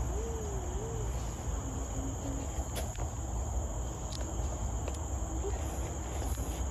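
Insects singing in a continuous, steady high-pitched drone.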